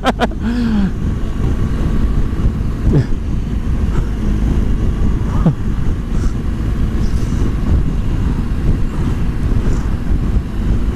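Motorcycle riding at speed: steady wind rush buffeting the helmet-mounted microphone, over a low rumble of engine and road noise.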